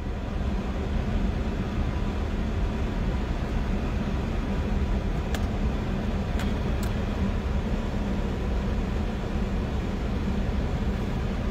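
Steady low rumble of background noise with a faint constant hum, and a few light clicks between about five and seven seconds in.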